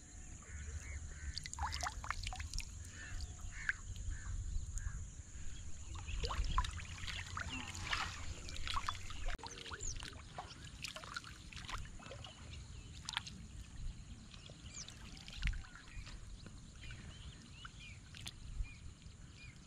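Shallow water splashing and sloshing irregularly as a person wades and works his hands through a flooded field, over a steady low rumble of wind on the microphone.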